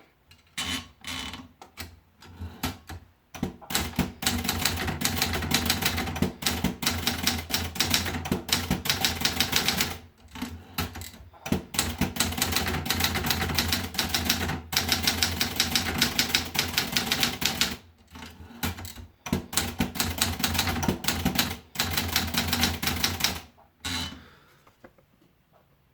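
Triumph Gabriele typewriter being typed on: a few separate keystrokes at first, then fast runs of typing broken by short pauses, stopping about 24 seconds in.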